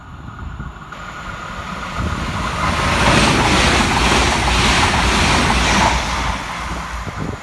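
Irish Rail 22000 Class ICR diesel multiple unit passing through the station at speed: a rushing of wheels and engines that builds over the first few seconds, is loudest as the carriages go by, and falls away near the end as the rear cab passes.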